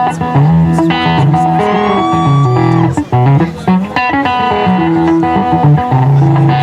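Instrumental break on a picked string instrument: quick runs of plucked notes over a moving bass line, with one longer held note about two seconds in.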